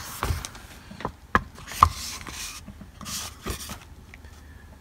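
A paperback book and its clear plastic and tissue wrapping being handled and opened: rubbing and rustling, with a few sharp taps and clicks as the cover and pages are moved.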